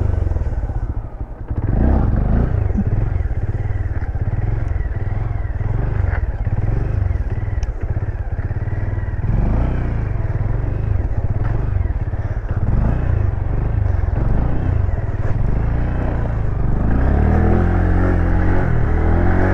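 Motorcycle engine running during wheelies, the revs rising and falling repeatedly, with a brief drop in level about a second in as the throttle is closed.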